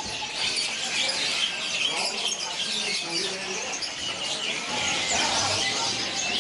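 Many caged songbirds chirping and twittering at once, their short calls overlapping in a dense, steady chorus.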